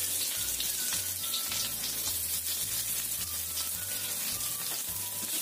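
Sliced shallots sizzling steadily in hot frying oil in a wok.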